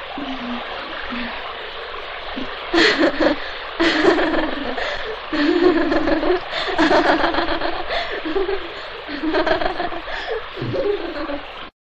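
Laughter in loud bursts over a steady background hiss, cutting off abruptly near the end.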